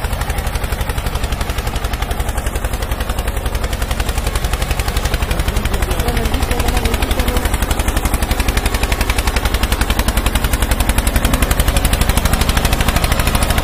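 Homemade model tractor running: a steady, rapid chugging of about eight beats a second, getting a little louder about six seconds in.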